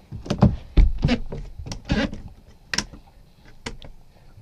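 Overhead deck hatch on a sailboat being pulled shut from below and its latch handles turned closed: a series of clicks and knocks, with a heavy thump about a second in.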